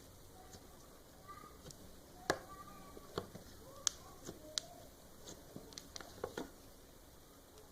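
Slime being squished and pressed by hand, giving a dozen or so scattered sharp clicks and pops.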